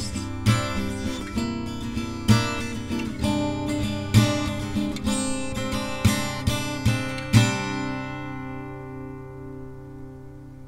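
Acoustic guitar strumming the song's closing chords. The last strum, about seven and a half seconds in, is left to ring out and fade.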